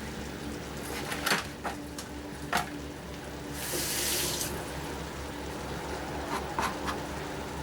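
Small high-carbon-steel pocket knife slicing a tomato: a few sharp clicks early on and again near the end, with a short wet hiss about four seconds in, over a steady low hum.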